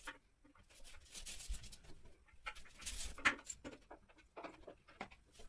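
Scattered light clicks, knocks and rustling from hands handling flat-pack cabinet panels and small metal fittings on cardboard.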